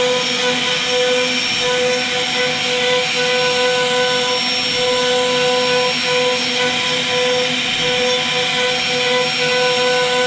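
CNC router spindle running with a steady whine while its bit carves a relief pattern into a wooden panel, with a constant hiss of cutting.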